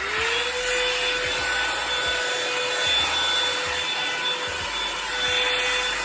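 Revlon hair dryer brush switched on, its motor spinning up in a fraction of a second and then running at a steady pitch with a rush of air and a thin high whine.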